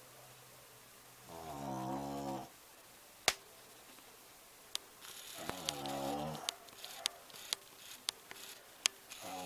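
A sleeping pet snoring: two drawn-out snores about four seconds apart, each lasting about a second, with a few sharp clicks between them, the loudest a little after three seconds in.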